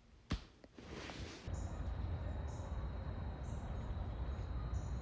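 A single click, then outdoor summer ambience: wind rumbling on the microphone, with insects making a steady high buzz and short high chirps about once a second.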